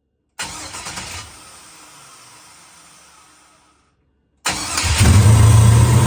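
The 1971 Chevelle's supercharged LS-swap V8, on a Procharger and a new base tune, fires up on a start attempt. It catches suddenly and fades away, then, after a short gap, it is running loudly with a steady low drone. It is struggling to stay running: it would start for a few seconds and then shut right off, which the owner suspects is the tune.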